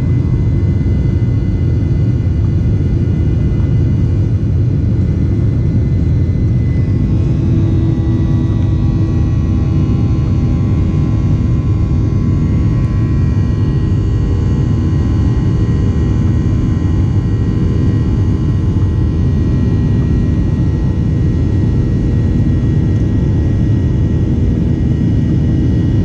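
Airliner cabin noise during takeoff, heard from a passenger seat: a loud, steady engine and airflow rumble with faint high whining engine tones over it that sink slightly in pitch partway through.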